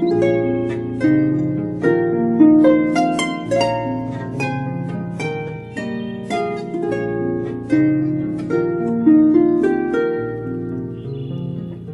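Soothing background music on a harp-like plucked string instrument: a flowing run of ringing picked notes over a held low bass.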